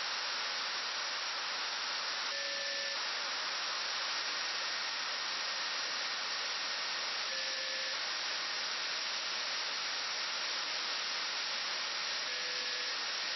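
Steady radio hiss from a HackRF software-defined radio's demodulated audio, tuned to the FUNcube-1 (AO-73) satellite downlink. Three short, brighter bursts come through about five seconds apart.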